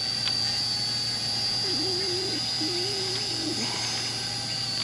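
Parrot Bebop 2 quadcopter drone's propellers running steadily as it flies, a wavering tone rising and falling briefly near the middle.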